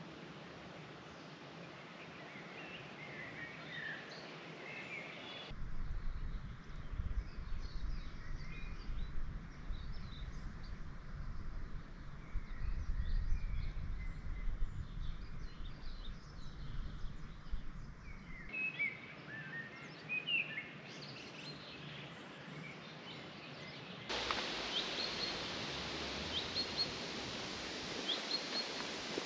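Wild birds chirping and singing against a steady outdoor hiss, with the background changing abruptly a few times. Through the middle stretch a low rumble sits under the birdsong.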